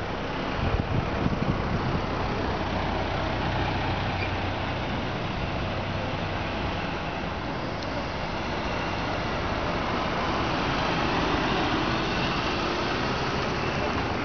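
Steady road traffic noise with a low engine hum, and a few brief thumps about a second in.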